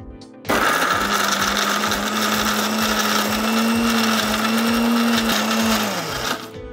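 Electric mixer grinder (mixie) grinding fried red chillies in its steel jar. The motor whirs up about half a second in, runs steadily for several seconds, then spins down and stops near the end. This is one burst of a pulsed grind, run in short spells so the chutney stays coarse.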